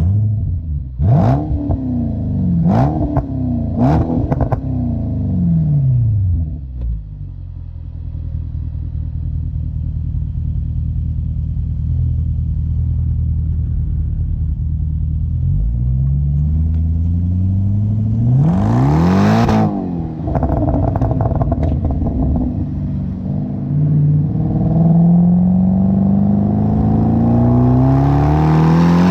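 Jaguar XFR's supercharged 5.0 V8 through Spires stage 2 exhaust back boxes, blipped three times in quick succession with sharp crackles as the revs drop. It then idles steadily, is revved up and down once more at about two-thirds of the way through, and near the end is held at raised revs before a final rise and fall.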